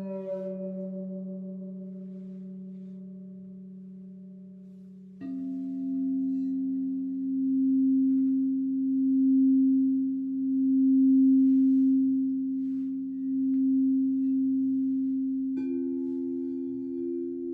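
Crystal singing bowls ringing in long, steady tones. A new bowl comes in suddenly about five seconds in, its tone swelling and fading in slow pulses, and a higher bowl joins near the end over the low tone that rings on beneath.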